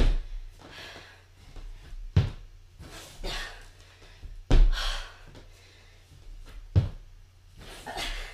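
A person doing burpees on a wooden floor: a heavy thud from the feet landing about every two seconds, four in all, with hard breathing between.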